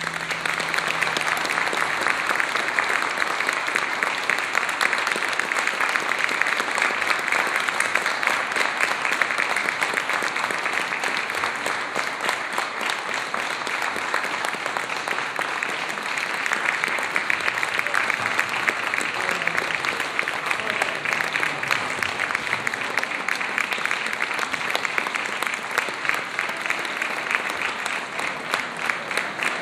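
Audience applauding: many people clapping together in a dense, steady wash that keeps on without a break.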